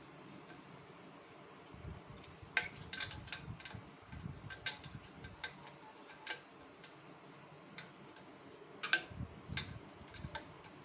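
Irregular metallic clicks and clinks of hand tools on bolts as an exhaust muffler is fastened onto a motorcycle. The loudest clinks come about two and a half seconds in and again near nine seconds.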